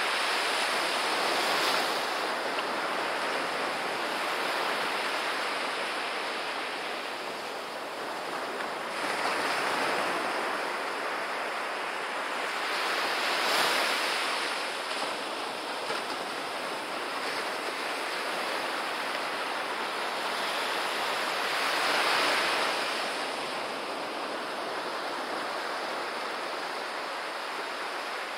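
Small ocean waves breaking and washing up a sandy beach, the surf swelling and easing every few seconds, with some wind on the microphone.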